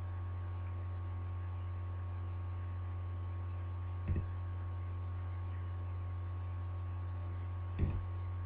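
Steady low electrical hum, with two brief soft sounds about four seconds in and again near the end.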